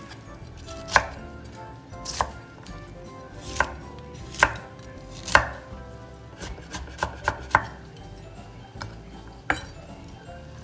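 Kitchen knife slicing cabbage on a wooden cutting board: separate sharp chops hit the board about once a second, unevenly spaced, with a quicker run of lighter cuts about two-thirds of the way through.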